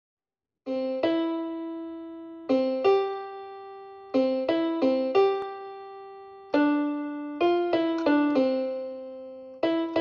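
Background music: a slow keyboard melody of struck notes that ring out and fade, in small groups, becoming quicker and more even near the end.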